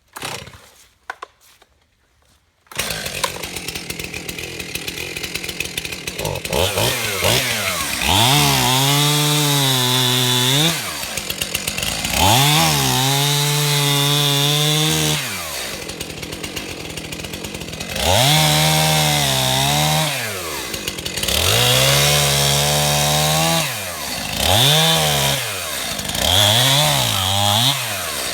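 Stihl MS291 two-stroke chainsaw starting about three seconds in, idling, then throttled up to full speed six times with drops back to idle between, as it cuts pine logs.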